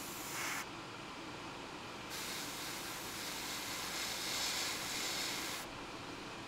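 Airbrush spraying paint in two pulls of the trigger: a hiss that stops about half a second in, then a longer, louder hiss of about three and a half seconds that cuts off near the end.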